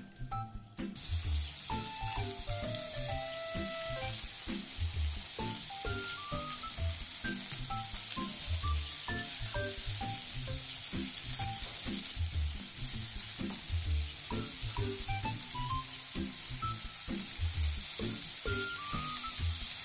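Japanese pumpkin (kabocha) slices sizzling in hot oil in a frying pan: a steady hiss that sets in about a second in.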